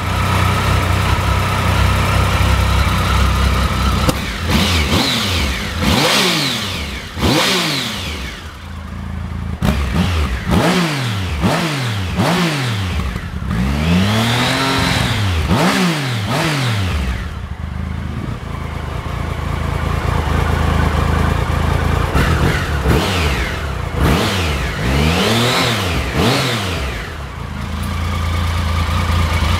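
Triumph Speed Triple 1050 inline-three engine idling and being revved in a series of quick throttle blips, one held a little longer near the middle, settling back to idle between them. The seller describes the engine as free of abnormal noise.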